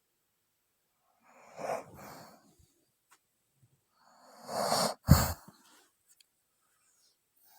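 A woman snoring in her sleep, worn out from exhaustion: two noisy breaths about three seconds apart, the second louder and ending in a short sharp snort.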